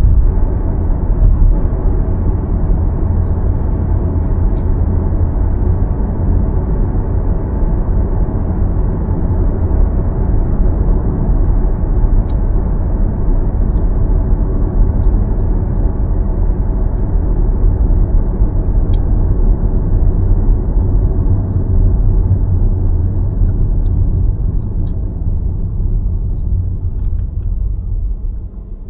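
A car driving along, its steady low road rumble of tyres and engine, easing off near the end.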